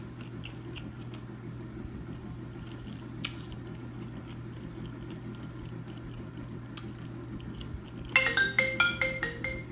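Faint chewing and mouth clicks. About eight seconds in, a phone's marimba-style ringtone starts playing a quick run of bright notes for about a second and a half, then stops.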